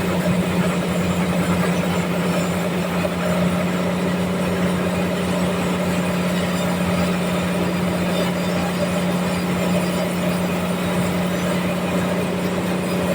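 Sawmill running steadily while sawing a trembesi (rain tree) log: a constant hum under a dense, even hiss.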